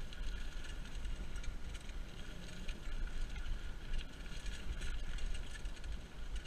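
Mountain bike rolling along a dirt trail covered in dry fallen leaves: the tyres crackle through the leaves amid many small ticks and rattles. A steady low rumble of wind on the camera's microphone sits beneath it.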